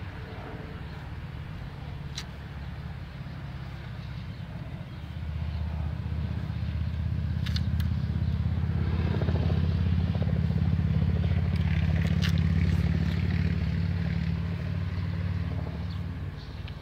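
Low motor-vehicle engine rumble that swells about five seconds in, holds steady, then drops back near the end.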